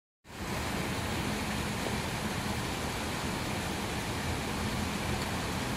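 Steady rush of water falling into a rocky garden pond, an even hiss with a low rumble underneath.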